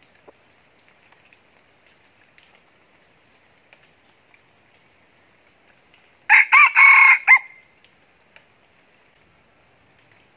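Red junglefowl rooster crowing once, a short crow of about a second that starts about six seconds in.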